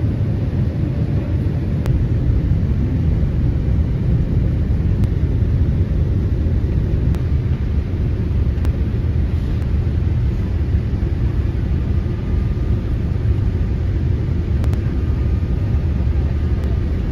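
Steady low rumble of engines and airflow heard inside the cabin of a Boeing 787-8 Dreamliner on its descent to land. A faint steady whine joins about halfway through.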